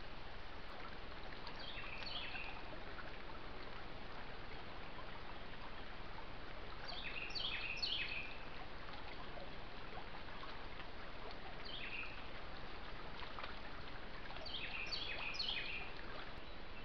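Steady hiss of running creek water, with a bird calling four times: short phrases of a few quick notes stepping down in pitch.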